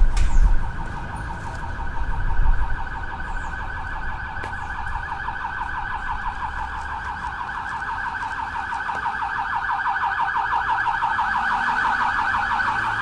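Emergency vehicle siren sounding in a fast warble, gradually growing louder. Low rumbling near the start and again about two seconds in.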